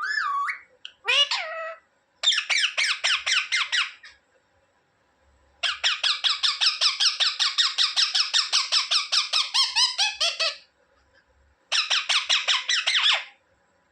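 Indian ringneck parrot calling: two short gliding calls, then three bursts of fast repeated squawks, about eight a second, the longest lasting about five seconds.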